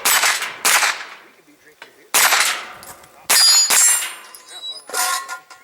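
A pistol caliber carbine firing about six shots, spaced unevenly. Several shots are followed by the ringing clang of bullets striking steel targets.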